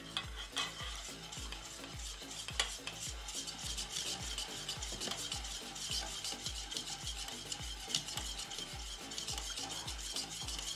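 Wire whisk beating melted soap-making oils in a stainless steel bowl: a steady rapid scraping and clinking of the wires against the metal, with a few louder clinks. The oils are being whisked to bring their temperature down for saponification.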